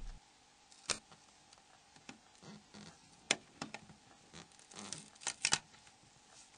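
Faint scattered clicks and scrapes of small plastic phone parts being handled as a Nokia E70's battery deck is worked free of its cover assembly, with a cluster of clicks about five seconds in.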